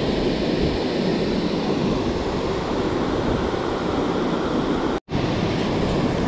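Steady rushing of river water below a dam, mixed with wind buffeting the microphone. The sound drops out for an instant about five seconds in.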